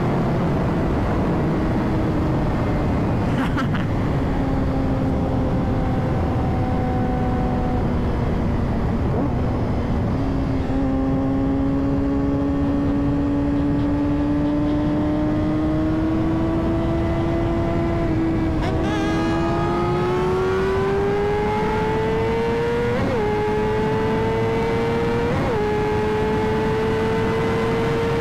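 Inline-four sport-bike engine running at highway speed under a steady rush of wind: its pitch sinks slowly for about ten seconds, then climbs steadily through the rest as it accelerates, with two brief pitch jumps near the end.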